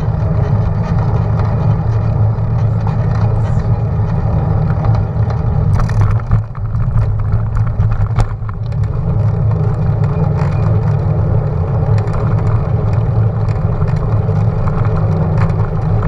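Wind rushing over an action camera's microphone on a moving road bike, a steady low rumble along with tyre noise on asphalt, with a couple of brief knocks about six and eight seconds in.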